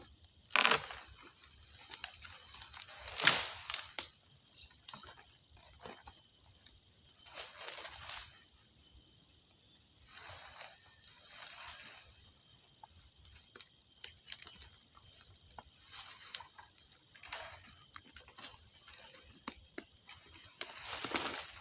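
A steady high-pitched insect drone, with scattered rustling and knocks of someone moving about in the undergrowth; one louder knock comes about three seconds in.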